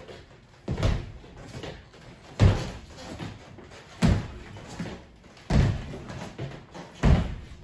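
Feet landing hard on a wooden floor as fencers lunge and recover: five heavy thuds about a second and a half apart, each followed by a lighter step.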